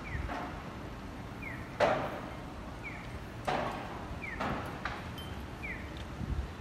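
Street sounds on a city walk: a short high falling chirp repeating about every second and a half, with a few sharp knocks, the loudest just under two seconds in.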